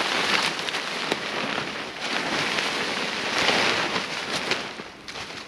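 A large camping tarp flapping and crackling in gusty wind, with many irregular sharp pops. It swells to its loudest about three and a half seconds in and eases near the end.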